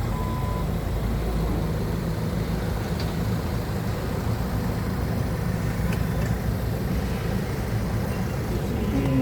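Forklift engine running steadily, with one last beep of its reversing alarm at the very start.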